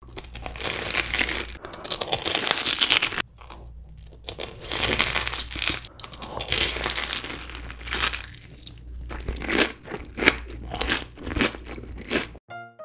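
Crunching bites and chewing of a fried, breadcrumb-coated corn dog covered in cheddar cheese sauce, the crisp crust crackling loudly in close-up in several clusters of bites. The crunching cuts off abruptly near the end.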